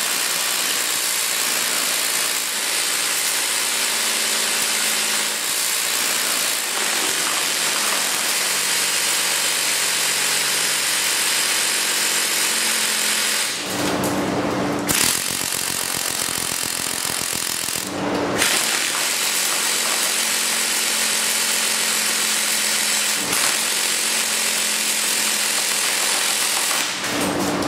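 Echo 1 M134 airsoft minigun firing in long continuous bursts, a dense mechanical buzz. It breaks off briefly about halfway through and again a few seconds later.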